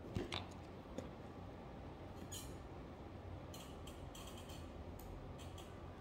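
A few knocks and handling sounds as the person shifts and swings an arm near the microphone, then scattered faint light clicks, bunched together in the second half, from the computer desk over a steady low room hum.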